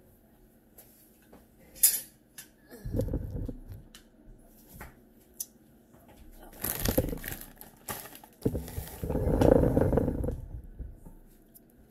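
Dishes and utensils being handled at a meal table: scattered clicks and clinks, with a few longer rustling, shuffling stretches, the loudest a little before the end.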